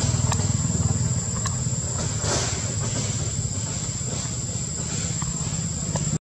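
Outdoor ambience: a steady high-pitched insect drone over a continuous low rumble, with a few faint clicks; the sound cuts out abruptly near the end.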